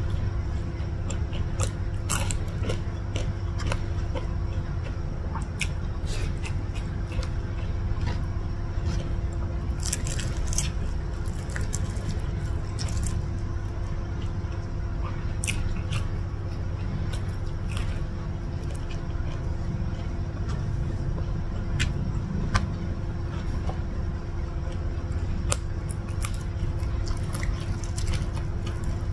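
Close-miked eating sounds: a person chewing and handling nasi lemak with fried chicken by hand, with wet smacks and sharp little clicks scattered throughout. Under them runs a steady low hum.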